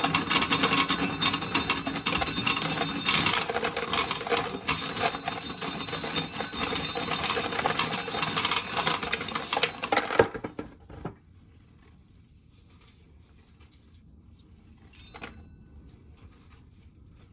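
Corn being shelled: a dense rattling clatter of kernels and cobs for about ten seconds, then it stops and only a few faint clicks remain.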